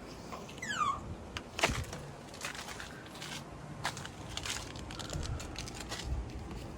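Toyota Tacoma roof weather strip being pulled up by hand off its clips: scattered small clicks and crackles, with a short falling squeak about a second in.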